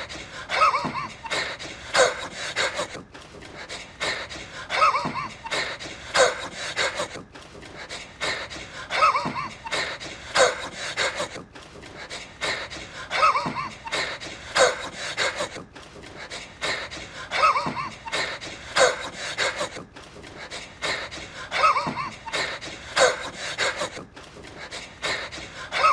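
A man wheezing: a run of breathy, squeaky gasps that fall in pitch, repeated as a loop about every four seconds.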